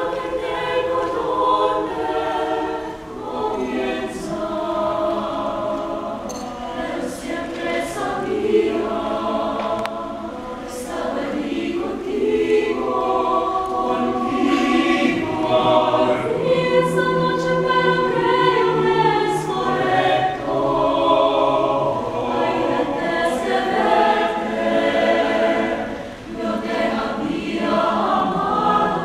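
Mixed choir of men's and women's voices singing in held chords, with short breaks between phrases about three seconds in and again near the end.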